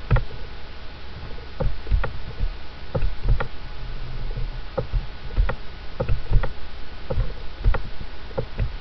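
Irregular clicks and light knocks, about one or two a second, from a computer mouse and keyboard being worked at the desk, over a steady low hum.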